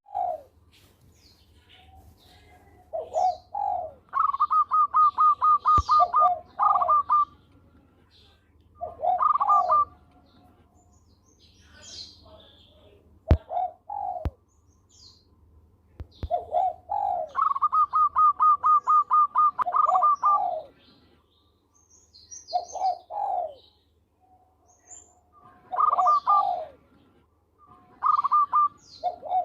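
Zebra dove (perkutut) cooing: repeated phrases of low coos, two of them drawn out into a long, fast stuttering trill. Faint higher chirps and a couple of sharp clicks come between the phrases.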